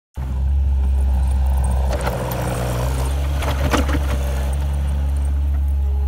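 New Holland skid steer's diesel engine running steadily under load as the machine drives through deep snow with its bucket, with a few short knocks and clatters from the loader. The sound cuts in suddenly just after the start.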